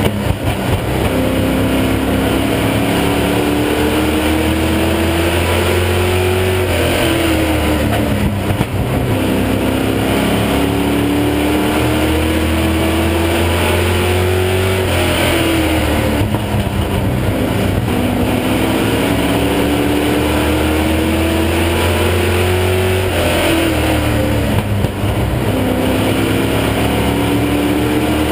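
Stock car engine at racing speed, heard from inside the cockpit of the #33 Chevy Monte Carlo Sportsman car. The pitch climbs steadily down each straight and drops sharply as the driver lifts for the turns, about every seven to eight seconds.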